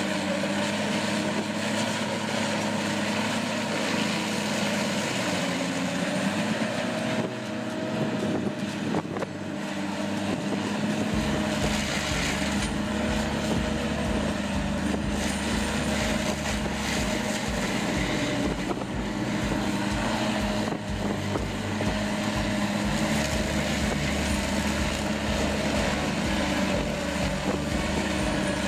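Large log wood chipper running: a steady mechanical drone, joined about eleven seconds in by a low, even pulsing.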